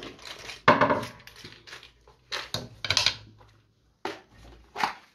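Small metal tools and parts clinking and clattering as they are handled, in a string of separate sharp knocks with short gaps between.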